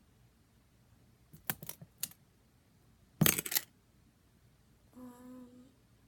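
Small objects being handled and set down: a few light clicks around a second and a half in, then a louder burst of clatter about three seconds in. Near the end comes a short hummed note.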